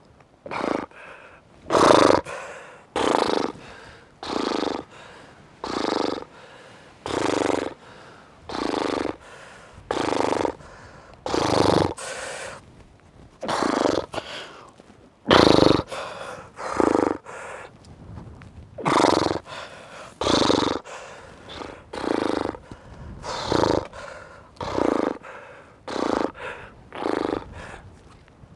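A rock climber breathing hard under strain, with a loud forced exhalation or grunt about every second and a half as he pulls through hard moves on small finger holds.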